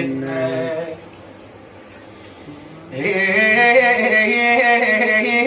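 A man singing an Arabic (Iraqi) song in a long, drawn-out style. A held line ends about a second in, there is a short pause, then the voice comes back loud on sustained notes with a wavering pitch.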